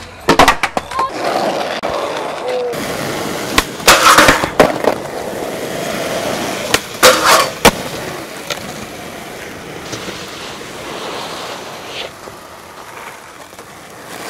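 Skateboard wheels rolling over rough pavement, broken by loud sharp clacks and slaps of the board being popped and landed: a cluster about half a second in, another around four seconds, another around seven seconds, and a lighter one near the end.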